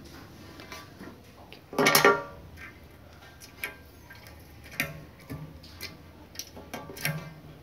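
Brittle slime being squeezed and worked in the hand, giving scattered small clicks and pops, with one louder, longer burst about two seconds in.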